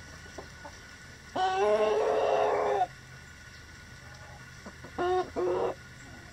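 Chicken calling: one long, loud call starting about a second and a half in, then two short calls in quick succession near the end.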